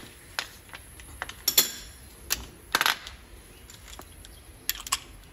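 A handful of sharp, light metallic clinks at irregular intervals, the loudest about a second and a half in and just before three seconds, with a quick cluster of them near the end: hand tools and small steel parts being handled during work on the front steering knuckle.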